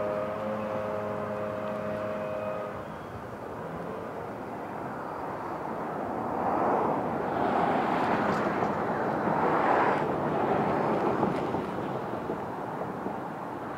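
Outdoor ambience with a distant engine: a steady hum for about the first three seconds, then a louder rushing noise that swells and fades between about six and eleven seconds in.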